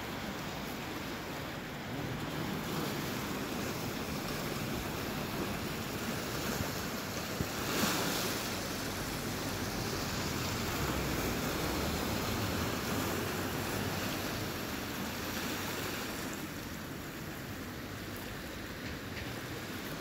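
Small sea waves washing in over shoreline rocks and breaking against them, a steady rush of surf with one louder surge about eight seconds in.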